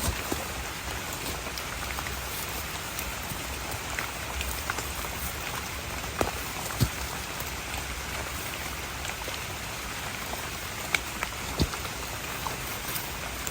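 Steady rain falling, with a few sharp louder drop taps close by, about six and eleven seconds in.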